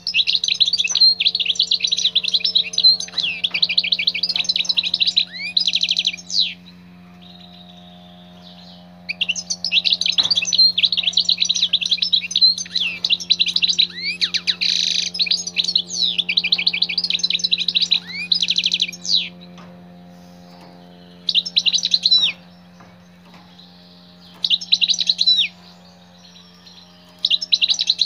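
European goldfinch singing: long runs of fast, liquid twittering, then a few short bursts near the end. A steady low hum runs underneath.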